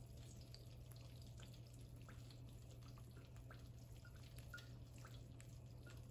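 Very faint, scattered pops and crackles of breaded tilapia fillets frying in oil in a skillet, over a steady low hum.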